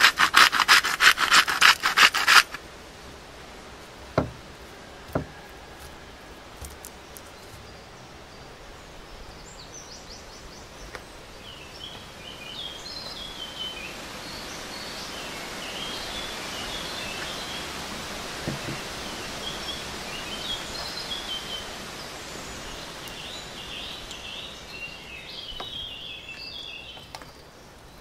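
A quick run of rasping grinding strokes for about two seconds, typical of a salt grinder cranked over raw steak, then two single knocks. After that a steady hiss with scattered high chirps.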